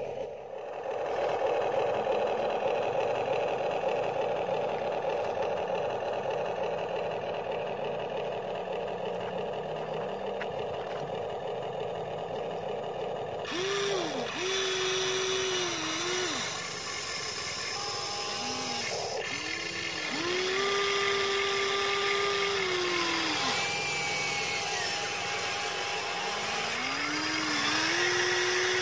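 Electric motors of a Huina 1593 RC toy excavator whirring as it works its arm and bucket in soil. A steady whir fills the first half, then a whine that rises, holds and drops in pitch in stretches of one to three seconds as the boom and bucket move.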